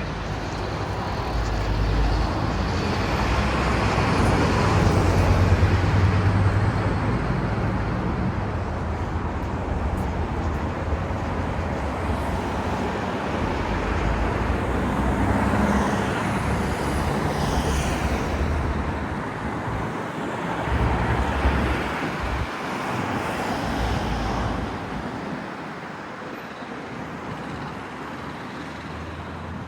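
Town-centre road traffic driving past, several vehicles in turn with engine rumble, loudest about five seconds in and again around twenty-one seconds, easing off near the end.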